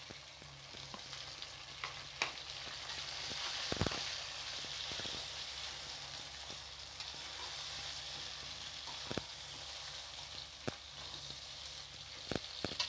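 Chicken pieces, fresh tomatoes and fried onions sizzling in hot oil in a pan, a steady frying hiss. They are being stirred with a metal skimmer that knocks against the pan a few times, loudest a little under four seconds in.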